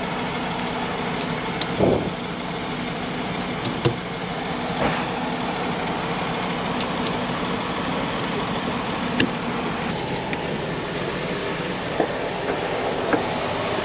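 A motor vehicle engine running steadily, a constant drone with a few light clicks and taps over it.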